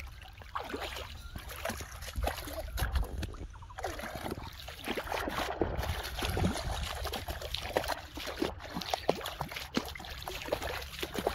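Shallow muddy water splashing and sloshing in irregular bursts as a person wades, grabs at fish by hand and pushes a plastic tub through the water.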